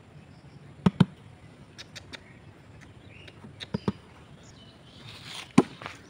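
Several sharp clicks, some in quick pairs, with a few brief faint squeaks between them and a short hiss near the end.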